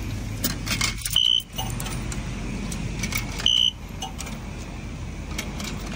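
Coins clinking into the slot of a coin-operated self-serve car wash control box, followed by three short, high, identical beeps about two and a half seconds apart from the machine.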